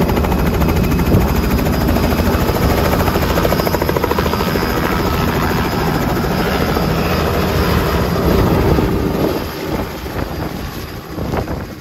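Small two-blade helicopter lifting off a helipad and climbing away: loud rotor and engine noise with a fast, even rotor beat, falling off from about nine and a half seconds in as it flies off.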